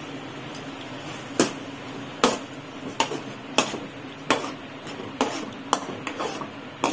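Perforated steel ladle stirring ground coconut into jaggery syrup in an aluminium kadai, clinking sharply against the pan about once every three-quarters of a second from about a second and a half in, over a steady background hiss.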